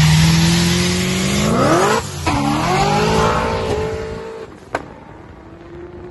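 Procharged Mustang Cobra accelerating hard from a roll. The engine note climbs steeply in pitch, breaks and drops about two seconds in at a gear change, then climbs again and fades as the car pulls away. There is a single sharp click near the end.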